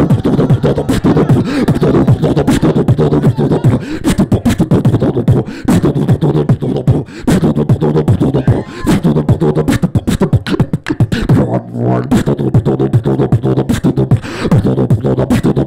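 Beatboxing through a handheld microphone and PA: a dense rhythm of mouth-made drum hits over a low, steady bass tone.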